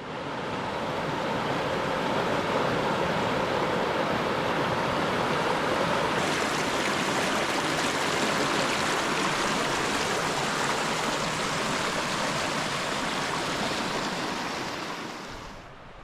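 Cedar Creek's water rushing in a steady, even roar. It fades in at the start and fades out near the end.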